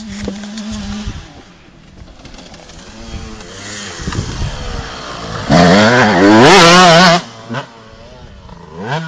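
Honda 250cc four-stroke motocross bike engine running and revving up and down. A loud burst of hard revving comes about halfway through and lasts over a second.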